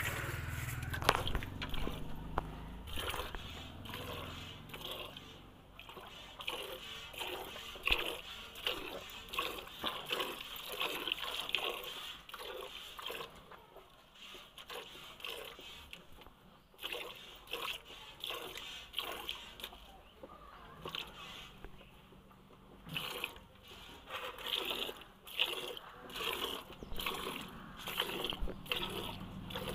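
Cow being milked by hand: rhythmic squirts of milk hitting the milk already in a steel bucket, about two a second, with a couple of short pauses partway through.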